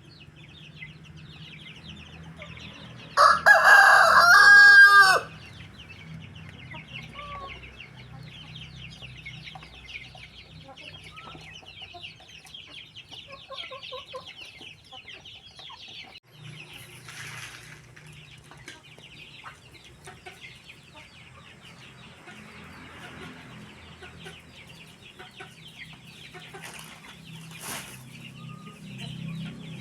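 A rooster crows once, loudly, about three seconds in, the crow lasting about two seconds. Around it, chickens cluck softly over a low steady hum.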